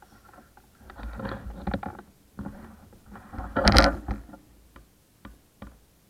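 Handling noise on the camera as it is moved: rubbing, scraping and knocks in two spells, the loudest knock in the middle, then a few short clicks near the end.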